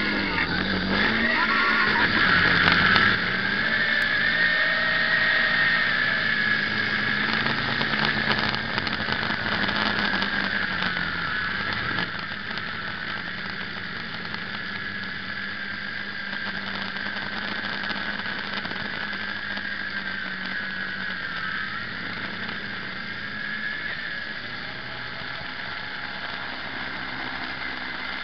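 Quadcopter's electric motors and propellers whining steadily, heard from a camera mounted on the craft, with a lower hum beneath. The whine drifts slightly up and down in pitch and drops a little in level about twelve seconds in.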